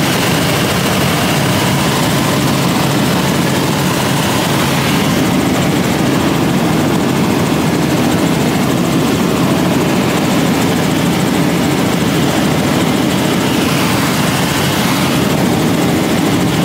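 Tour helicopter running, a loud, steady drone of engine and rotor noise.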